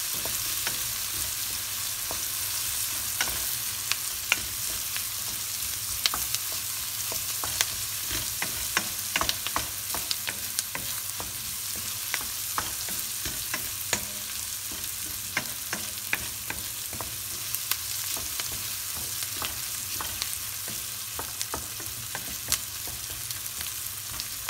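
Diced onions frying in olive oil in a stainless steel pan: a steady sizzle full of small sharp crackles, while a wooden spoon stirs them around the pan.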